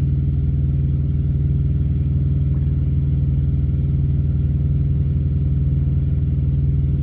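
Truck engine idling, a steady low hum heard from inside the cab.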